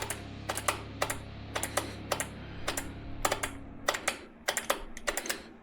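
Irregular sharp clicks and light taps of parts and tools being handled and set in place during motorcycle rear-axle work, some in quick pairs and clusters, over a steady low hum that fades about four seconds in.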